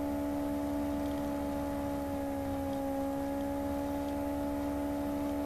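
Steady background hum made of several held tones, one low and a few higher ones close together, unchanging throughout.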